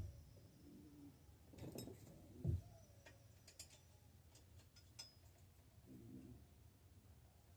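A few faint, scattered clinks and knocks of metal bike parts being handled, likely a kickstand being fitted to a steel bicycle frame.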